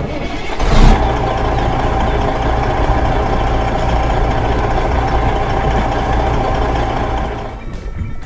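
Heavy vehicle engine running steadily. It starts with a loud burst about a second in and fades away near the end.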